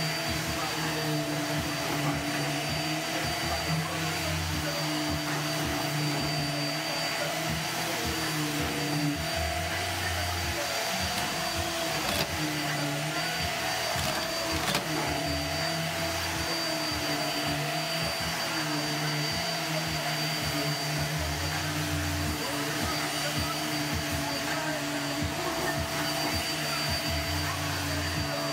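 Bagless upright vacuum cleaner running steadily while it is pushed back and forth over carpet: a constant motor whine over a lower hum that shifts with each push and pull.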